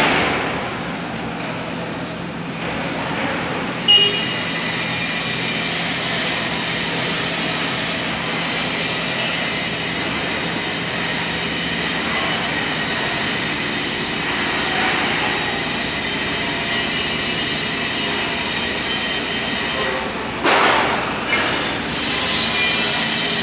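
JCB Loadall telehandler's diesel engine running steadily under load while its hydraulic boom lifts and extends, with a faint high whine over the engine noise. A single sharp knock comes about four seconds in.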